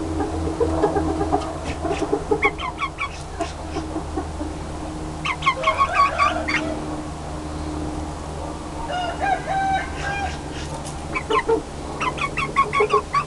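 Chickens clucking in short runs of quick calls, about four times, over a steady low hum.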